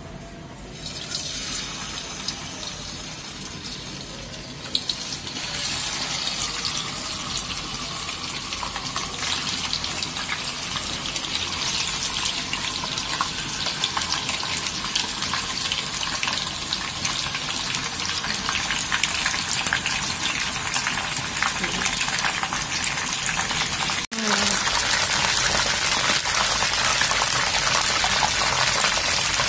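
Chicken pieces sizzling as they fry in hot oil in a pan. The crackle starts about a second in and grows louder after about five seconds.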